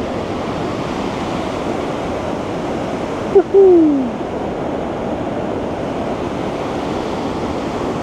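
White-water rapids of a stream rushing steadily down a stone channel. About three and a half seconds in, a short, loud cry falling in pitch cuts through once.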